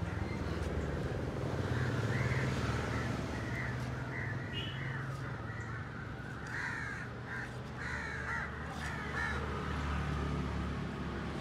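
Crows cawing again and again, over a steady low hum.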